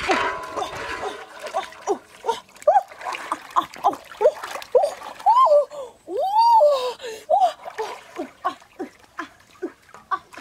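A young animal calling over and over in short squeaky chirps that bend up and down in pitch, with two longer, louder calls about halfway through. Water splashes at the start.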